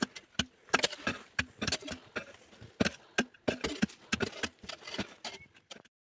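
Pickaxe hacking into hard red earth: irregular sharp knocks, about two to three a second, cutting off abruptly near the end.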